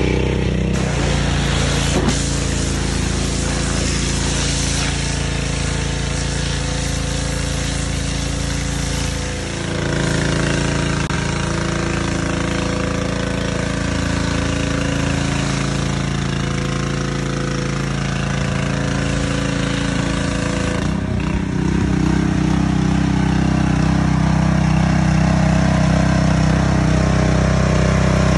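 A small engine running steadily, with a short dip in level about nine seconds in and a fuller, slightly louder note from about 21 seconds on.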